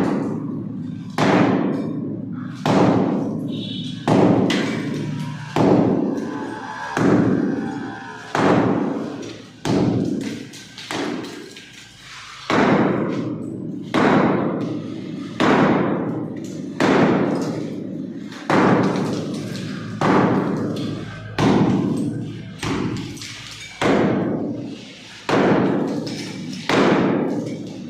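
Heavy hammer blows on a house wall, cutting out a window opening: a steady beat of about one blow every second and a half, each ringing out and fading before the next, with a short pause about ten seconds in.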